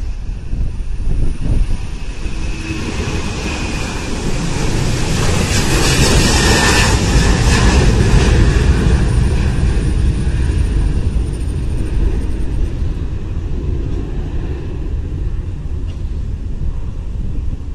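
Twin-engine jet airliner's engines at takeoff power as the plane passes and climbs away: a deep rumble with a high-pitched roar that swells to its loudest about six to seven seconds in, then slowly fades.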